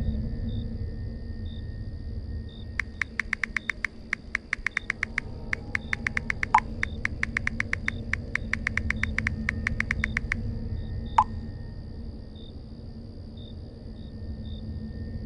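Smartphone keyboard clicks as a text message is typed: quick taps in runs of several a second, with short pauses between runs, stopping after about seven seconds. One more single click follows a second later. Under it runs a low steady drone.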